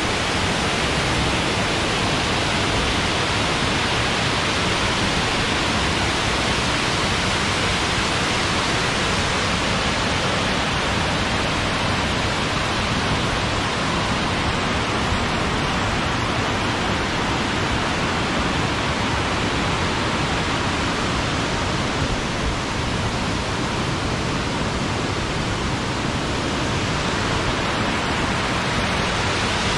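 Waterfall's steady rushing roar of falling water, even and unbroken.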